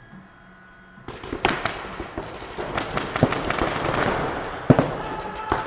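Paintball markers firing in rapid, irregular strings of sharp pops from several guns at once, starting about a second in.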